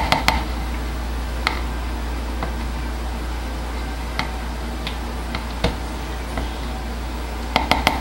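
Silicone spatula tapping and scraping against a plastic pitcher of coloured soap batter, giving a scattering of light clicks with a quick cluster near the end, over a steady low hum.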